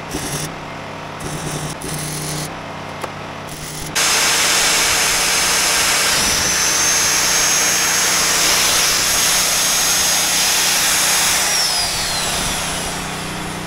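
Magnetic drill with an annular cutter: a few quieter scrapes and knocks, then about four seconds in the drill runs loud and steady while the cutter starts an angled hole in steel plate. It is fed very slowly because the cutter only bites on part of its edge at first and wants to hop. A high whine holds and then falls in pitch near the end.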